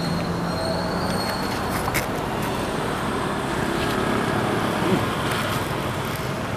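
Steady outdoor background noise with a traffic-like rumble, with a few faint clicks about two and five seconds in.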